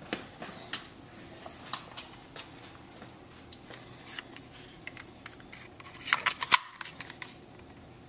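Scattered small plastic clicks and ticks from handling a power window master switch and its wiring connectors, with a quick cluster of clicks about six seconds in.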